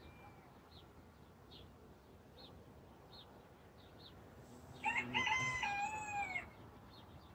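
A rooster crowing once, a single cock-a-doodle-doo lasting about a second and a half, about five seconds in, falling in pitch at its end. A small bird chirps faintly and repeatedly in the background.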